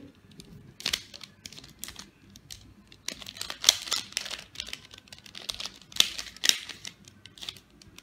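Gold mirror cube, a 3x3 twisty puzzle, being turned fast in a speedsolve: quick, uneven plastic clicks and clacks as its layers snap round.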